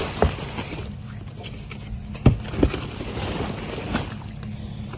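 Scrap items being handled: a few sharp knocks and clunks, the loudest a pair about two and a half seconds in, over a steady low hum.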